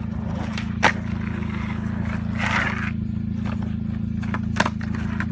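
Skateboard with urethane wheels rolling on asphalt, a steady low rumble, with two sharp clacks of the board, one about a second in and one near the end.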